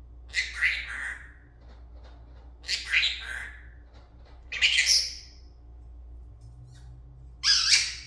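Senegal parrot giving four loud, harsh squawks a couple of seconds apart, the last near the end.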